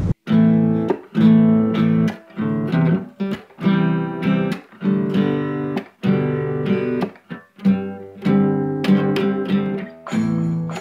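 Background music: acoustic guitar playing strummed chords, one chord after another with short breaks between them.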